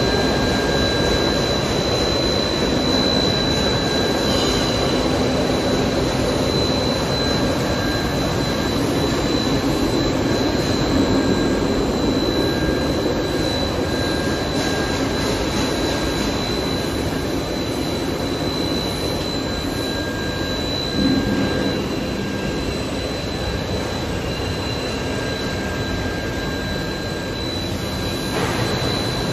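Biodegradable blown film extrusion line running: a steady rushing machine noise with a thin, high, constant whine.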